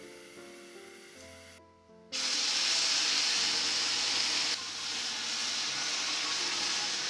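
Food sizzling loudly in a hot pan, a steady hiss that starts suddenly about two seconds in and eases slightly a couple of seconds later.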